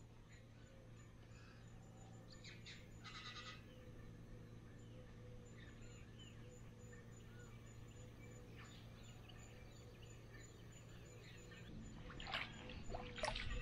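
Quiet lakeside ambience with a few faint bird calls, then water splashing near the end as hands scoop water from the lake's edge.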